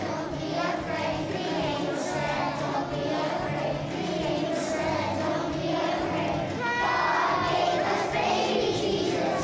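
A choir of young children singing a song together, steady throughout.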